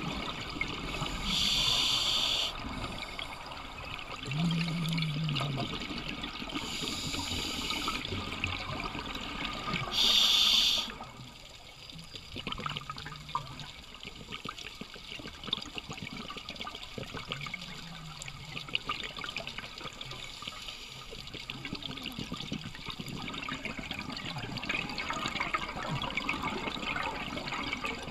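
Underwater sound of scuba breathing through a regulator: three rushes of exhaled bubbles in the first eleven seconds or so, with a short low tone about four seconds in. After that comes a quieter steady hiss of water with faint crackling.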